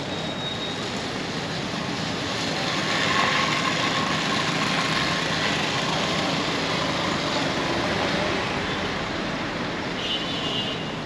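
Street traffic: a passing vehicle's noise swells about two seconds in, holds, and eases off near the end.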